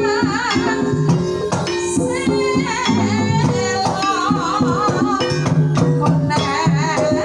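Javanese Banyumasan gamelan music: bronze metallophones struck in a steady pattern over held gong-chime tones and kendang drum strokes. A female sinden's voice winds over it in wavering, ornamented lines during the first two-thirds.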